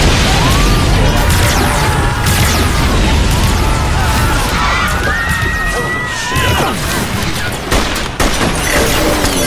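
Action-film sound mix: an explosion goes off at the start, followed by a continuous loud din of blasts, crashing and gunfire under music, with wavering high tones through the middle.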